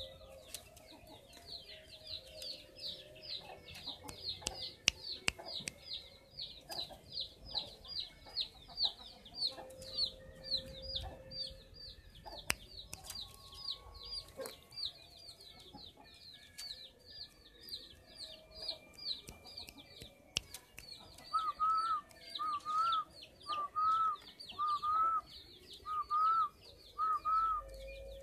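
Birds chirping: a rapid run of high, falling peeps, about three or four a second, continues throughout, and from about 21 seconds a lower two-note call repeats roughly once a second.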